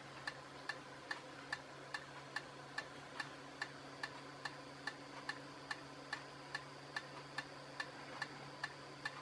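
Small fan running with a steady low hum, and a light regular ticking between two and three times a second.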